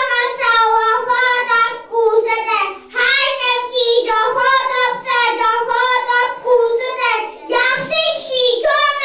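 A young child singing solo into a microphone, a high voice holding long, steady notes in short phrases with brief pauses between them.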